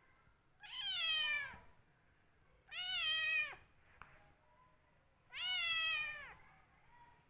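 White Persian cat meowing three times, each call drawn out for about a second and dropping in pitch at its end, as a hand bats at it in rough play.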